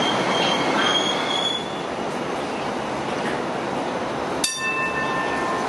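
Hong Kong Light Rail car running past on curved track, its running noise mixed with high wheel squeal that fades after about a second and a half. About four and a half seconds in, a sharp click breaks in, followed by a steady tone as a Phase 4 light rail car pulls away.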